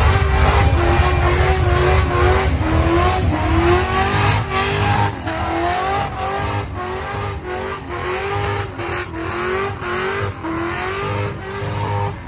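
Ford XE Falcon doing a burnout: the engine revs hard, its pitch rising and falling over and over, with the rear tyres spinning on the road.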